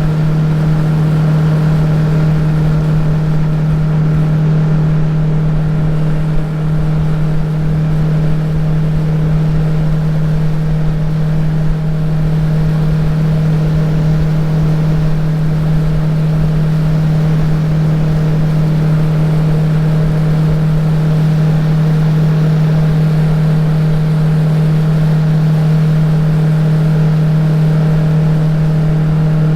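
Jet-drive outboard on a tunnel-hull jon boat running underway at a steady speed, one loud, even engine tone that holds its pitch throughout.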